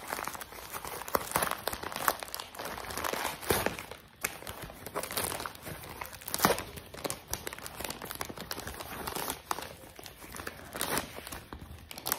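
Plastic packaging, a black courier mailer bag and a foam wrap, being crinkled and torn open by hand: an irregular crackling with sharper tearing sounds.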